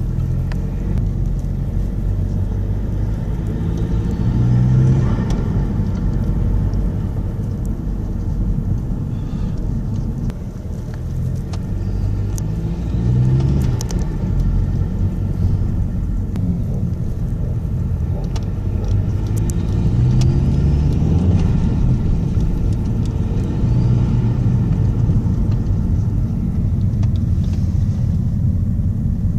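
Vauxhall Vectra C CDTi 150's 1.9-litre four-cylinder turbodiesel running through an aftermarket induction kit, the revs rising and falling several times with a loud intake rumble.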